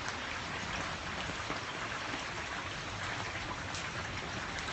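Steady rain falling, with scattered individual drops striking close by.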